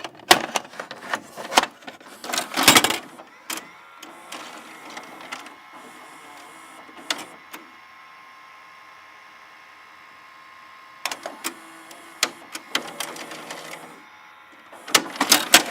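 Mechanical clicking and clattering, with a steady whirring hum in the middle. The clicks come in clusters at the start, a little after the middle and at the end, and the last clatter is the loudest.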